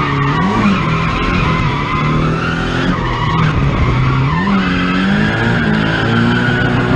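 Straight-piped Nissan 240SX's turbocharged SR20DET four-cylinder revving up and down through a drift, with tyres squealing. The engine note rises and falls a couple of times, then holds higher for the last couple of seconds.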